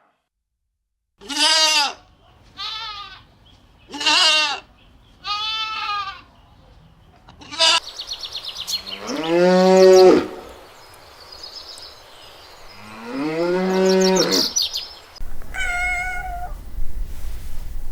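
Farm animals calling: four short, high bleats in the first six seconds, then two long, low moos from cattle, each about a second and a half. Near the end a higher-pitched meow from a cat.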